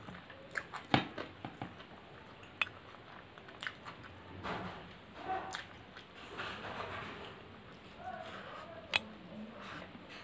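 Fingers mixing and scooping rice and curry on a stainless steel plate, with several sharp clicks of fingers and rings against the metal and wet chewing in between.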